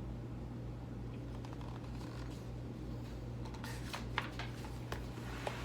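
A steady low electrical hum, with a few soft paper rustles and clicks in the second half as a picture book's page is turned.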